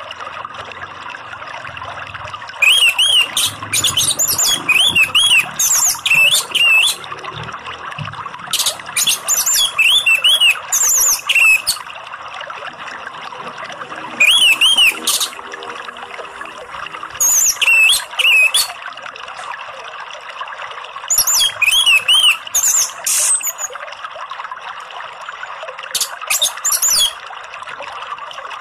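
Orange-headed thrush (anis merah) singing in six bouts of rapid, high whistled phrases a few seconds apart, over a steady rush of running water.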